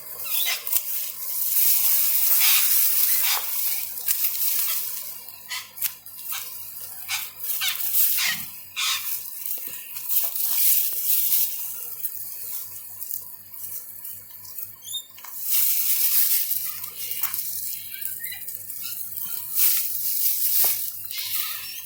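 Irregular rustling and scraping as potato plants are pulled up and hands dig through potting soil in a container, in uneven bursts with short pauses.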